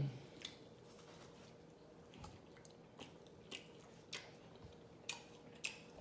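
A person chewing a mouthful of garlic burger with the mouth open, making soft wet smacks and clicks, about seven scattered through the few seconds.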